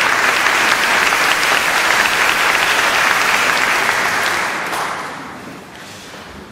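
Audience applauding, the clapping fading away over the last two seconds.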